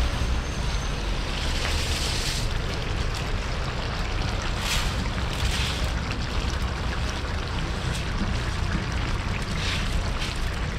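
A steady low rumble with short swells of hiss, a few times, as soaked rice is tipped from a metal basin onto the boiling carrot-and-meat base of plov in a large kazan.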